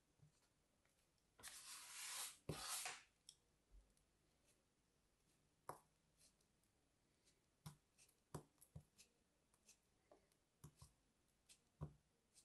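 A utility knife blade slicing through packed kinetic sand: two grainy, crumbling swishes about a second and a half in, then a scatter of faint crisp ticks and crunches as the blade cuts and crumbs fall away.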